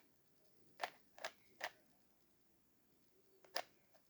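Plastic clacks of an original 3x3 Rubik's Cube being turned in the hand: four short, sharp clicks, three close together and one more near the end.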